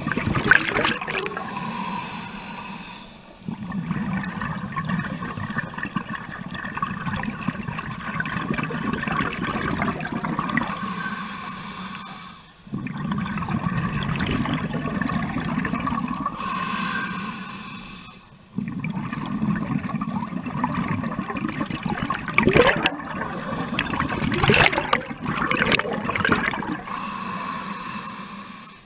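Scuba regulator breathing heard underwater: short hissing inhalations alternating with long bubbling exhalations, about four breaths in all.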